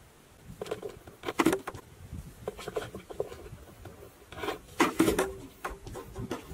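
A pigeon scrambling inside a cardboard box trap: its feet and wings scratch and rub against the cardboard in four short bouts. The loudest bout comes about five seconds in, as the cardboard flap drops shut.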